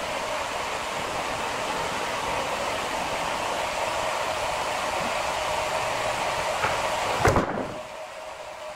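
Sawmill band saw machinery running steadily with a whirring hum. About seven seconds in comes one heavy thud, and the running noise then drops noticeably quieter.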